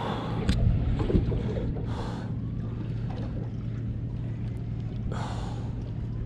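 Electric bow-mounted trolling motor running with a steady low hum, broken twice by short rushes of hiss, about two seconds and five seconds in.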